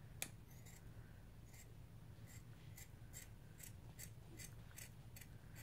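Scissors snipping through sock fabric in a faint, steady series of short crisp cuts, about two or three a second, with one louder snip right at the start.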